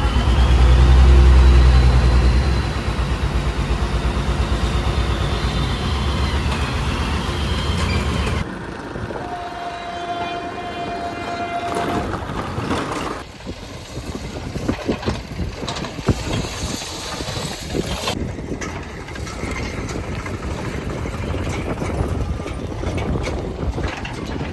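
Heavy diesel engines of earthmoving machines running, loudest and lowest in the first few seconds. A steady horn-like tone sounds for about two seconds around ten seconds in. The sound changes abruptly twice, and after that the engines run with scattered knocks.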